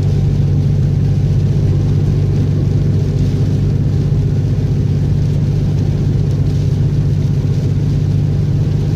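Car driving, a steady low rumble of engine and road noise that holds evenly throughout.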